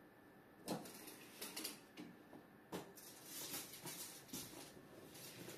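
Faint scattered clicks and scrapes of a tape measure being handled and stretched out against a wall.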